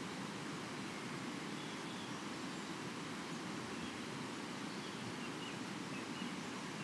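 Steady rushing of a river flowing, with a few faint short bird chirps over it.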